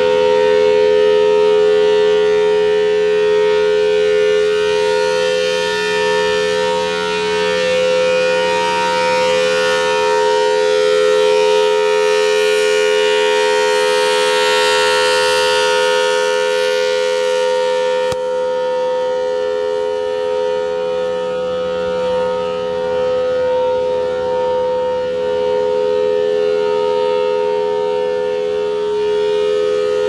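Federal Signal Thunderbolt 1000T dual-tone rotating siren sounding a steady alert: two sustained notes close in pitch sound together as a chord. The sound grows brighter and harsher about halfway through as the turning horn faces the listener, then mellows as it swings away.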